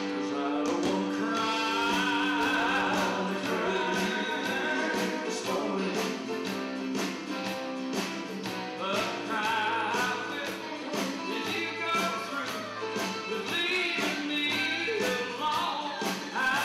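Live country music: male voices singing in harmony over strummed acoustic guitars and electric bass, with a steady strummed beat of about three strokes a second.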